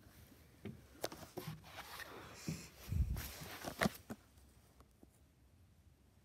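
A person's footsteps and scuffs: a run of irregular knocks, the loudest a low thump about three seconds in, growing quieter for the last second or two.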